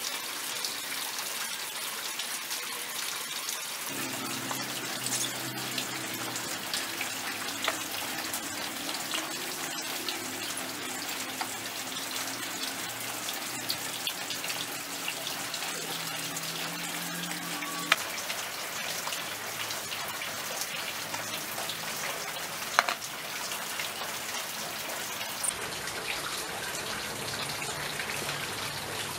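Steady hiss of rain, flecked with faint ticks, with a couple of sharper clicks past the middle.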